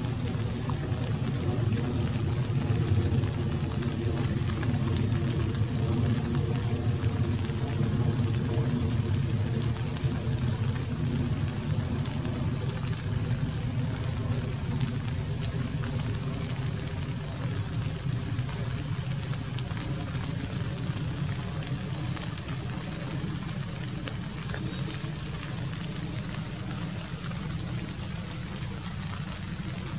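Steady rain falling, with a low engine-like hum underneath that carries a few steady tones, fading out about halfway through.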